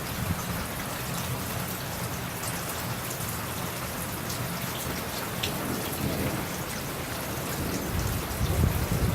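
Steady rain falling, with a low rumble of thunder building up near the end.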